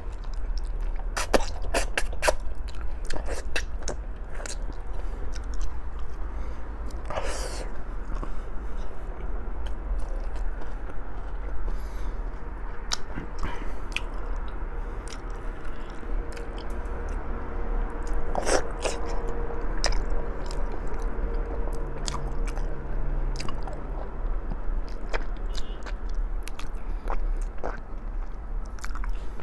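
Close-up chewing and biting of stewed pig's feet (balbacua), with many scattered sharp clicks over a steady low hum.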